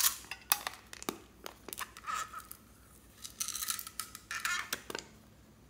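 Hard plastic toy egg handled and pulled open, with irregular clicks and scraping, squeaky plastic-on-plastic rubbing, and small beads rattling as they are tipped out of it.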